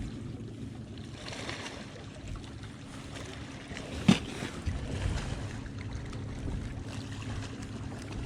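Fishing boat sitting on the lake: a steady low hum with water and wind noise, and a single sharp click about four seconds in.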